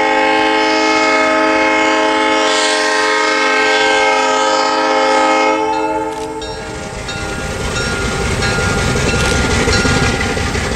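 Diesel locomotive's multi-chime air horn blowing one long chord, which cuts off about six seconds in. Then comes the engine's low rumble, growing as the locomotive throttles up with black exhaust and draws nearer.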